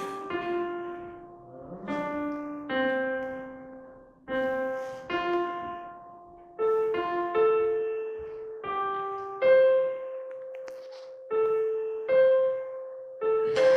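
Slow solo piano music: single notes and chords struck about once a second, each left to ring and fade.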